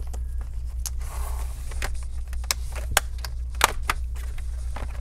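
Plastic snap clips of a laptop's bottom cover popping loose as the cover is pried up by hand: a handful of sharp clicks, the loudest about three and a half seconds in, over a steady low hum.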